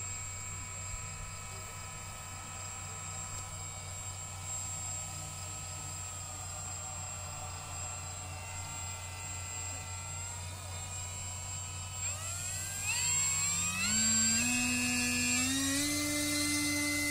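Electric motor and propeller of an RC motor glider running on a 3S LiPo battery, spooling up with a whine that rises in pitch in several steps and gets louder about two-thirds of the way in, as the throttle is opened for a hand launch.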